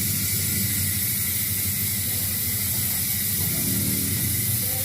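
Six-pawl bicycle rear hub freewheeling as the wheel is spun, its pawls clicking so fast that they make a steady buzz.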